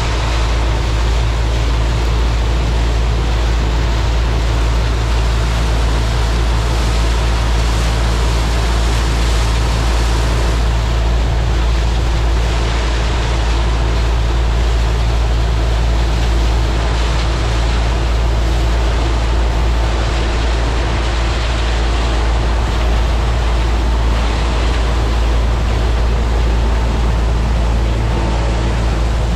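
New Holland TR99 combine harvester running steadily while harvesting soybeans: a continuous deep engine drone from its six-cylinder turbo engine, with a dense hiss from the threshing machinery over it.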